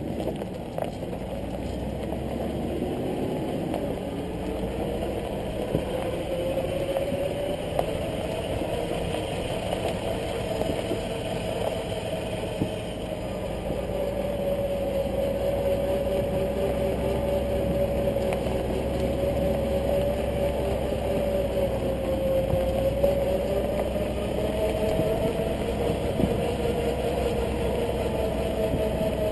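Hummer H3T Alpha's 5.3-litre V8 running under light load as the truck drives slowly off-road on a dirt trail. Its pitch rises over the first several seconds, then drifts gently up and down, over a steady low rumble from the truck rolling along the rough track.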